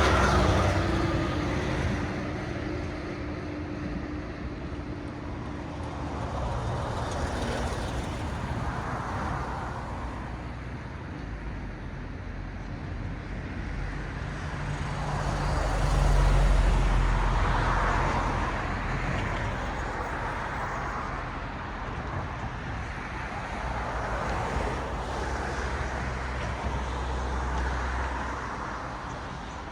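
Road traffic: cars passing one after another, their tyre noise swelling and fading every few seconds over a steady low engine hum. About halfway through, the loudest pass has a deeper rumble, like a heavier vehicle.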